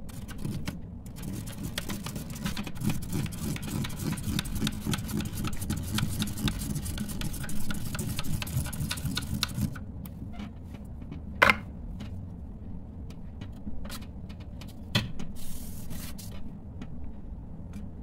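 A pen scratches on paper while a plastic Spirograph wheel is rolled round the inside of its toothed ring, the teeth ticking quickly as it goes. After about ten seconds the scratching thins out to scattered sharp clicks of the plastic pieces, the loudest a little past halfway.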